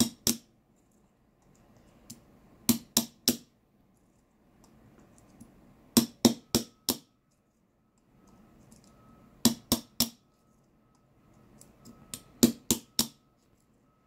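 Small hammer tapping a pin ejector tool to drive the pin stacks out of a small format interchangeable core held in an ejector block: short groups of two to four sharp taps, one group about every three seconds.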